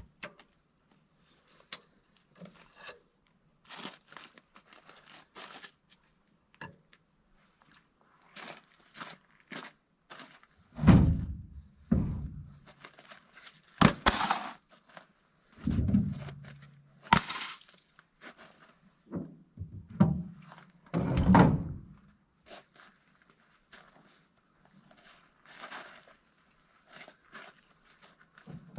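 Scattered metal knocks and clanks, then a run of heavy thunks between about 11 and 22 seconds in, from a jack being set and worked under a tractor's front end.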